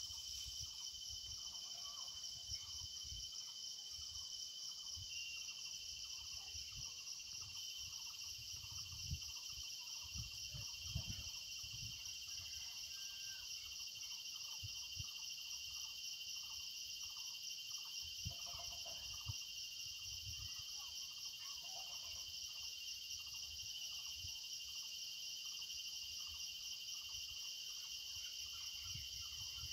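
Steady outdoor chorus of insects chirring, a continuous high-pitched drone that holds without a break, with scattered low rumbles and thuds underneath.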